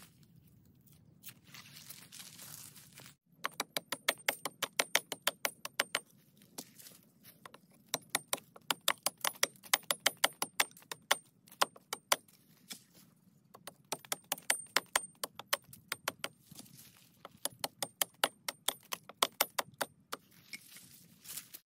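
Machete hacking into a thin tree trunk: quick, sharp chops of the blade biting the wood, several a second in runs with short pauses, starting about three seconds in.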